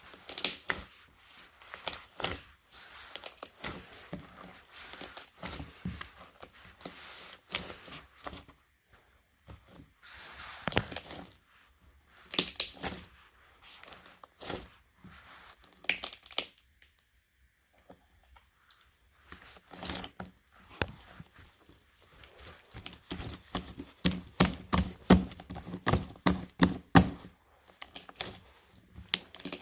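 Slime being squeezed and stretched by hand, giving irregular clicking and crackling pops with short pauses, and a quicker, louder run of pops a few seconds before the end.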